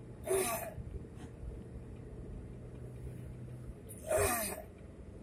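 Two short, loud vocal bursts from a person inside a moving car, one near the start and one about four seconds in, over the steady low hum of road noise in the cabin.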